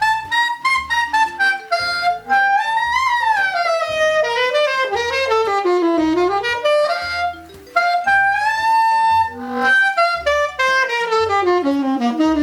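Saxophone playing a fast jazz line, with runs that sweep up and down and a short break about seven and a half seconds in. It is being played on an I.O.A. reed that the player finds super unstable and a little brittle-sounding.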